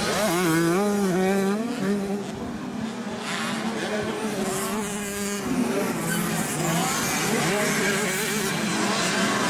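65cc two-stroke motocross bikes racing, engines running high and buzzy. The pitch wavers up and down with the throttle for the first couple of seconds, holds steady, then drops about six seconds in and wavers again.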